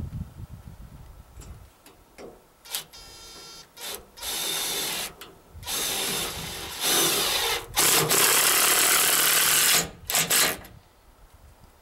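Cordless drill-driver running into a log wall in a series of bursts, a few short starts and then longer runs. The longest and loudest run lasts about two seconds, starting near eight seconds in.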